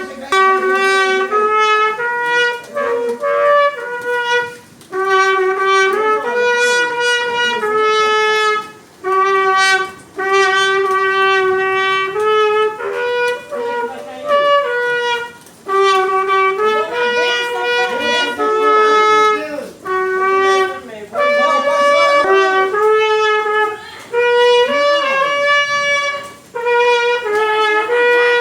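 Trumpet playing a slow melody: a string of held notes in short phrases, with brief breaks between phrases.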